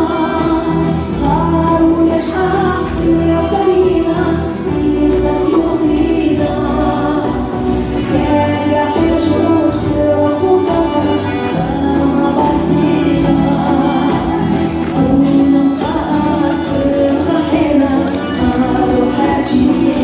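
Music with group singing over a steady accompaniment and a light beat.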